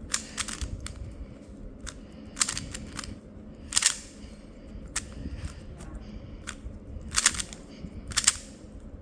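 Plastic Moyu 3x3 speed cube being turned by hand: irregular sharp clacks of layers snapping into place, a handful of louder ones spread through with fainter turning between.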